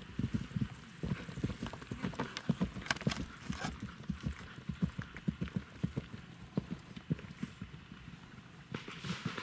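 Hoofbeats of a bay horse cantering on grass turf: a quick run of low, dull thuds, several a second.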